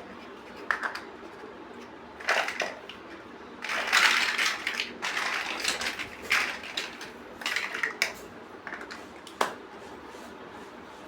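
Plastic building bricks being handled and pressed together: a run of sharp clicks and short rattling bursts, the busiest stretch about four seconds in.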